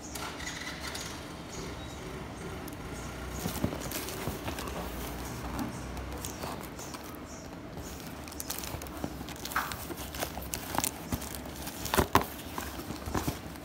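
Handling noise from a cardboard box wrapped in clear plastic film being held and turned over in the hands: crinkling and rustling with scattered small clicks, and a few sharper knocks near the end.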